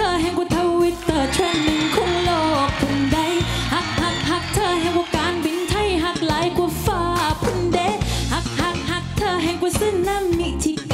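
Thai pop song: a sung melody over a steady drum and bass beat.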